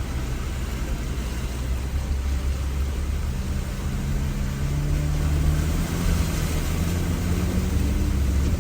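Jeep Gladiator's engine running under load as it crawls an off-road trail, a low steady rumble. About three and a half seconds in the engine note comes up and climbs slowly as throttle is added to push through mud.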